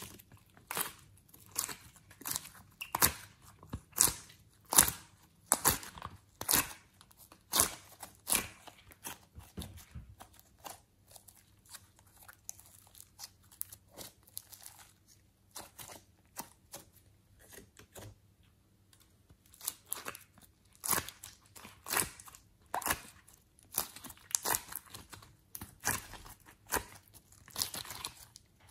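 Glossy slime squeezed and stretched by hand, making irregular sticky pops and clicks, sparser for a few seconds around the middle.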